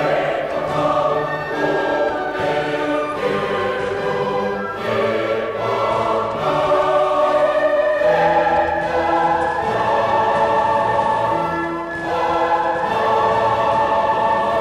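Background music: classical choral music, a choir singing sustained chords with orchestra.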